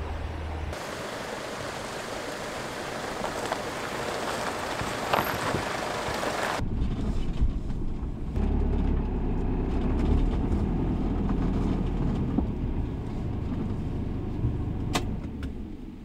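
Steady rush of a mountain stream. After about six and a half seconds a low rumble, like wind on the microphone, joins it.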